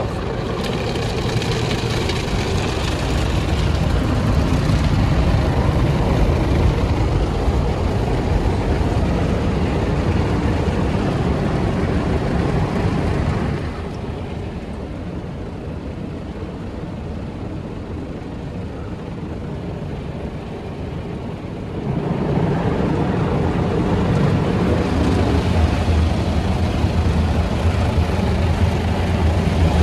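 WashTec SoftCare Prevo rollover car wash heard from inside the car: the green foam brushes scrub the bodywork while water sprays, a steady loud rush. The noise drops and dulls for several seconds about midway, then comes back up as the brushes work the sides again.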